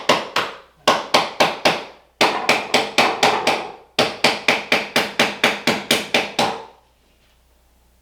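Hammer rapidly tapping a metal prying tool driven in behind a bathroom backsplash to work it loose from the wall. The sharp, ringing strikes come about five a second in several runs with short pauses, and stop about seven seconds in.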